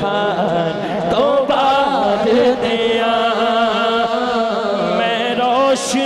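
A man's voice singing a naat into a microphone, drawing out long, wavering melodic phrases.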